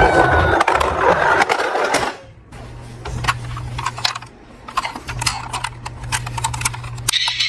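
A toy emergency vehicle's siren sound ends about two seconds in, cutting off abruptly. Quieter scattered clicks and rattles follow over a low steady hum.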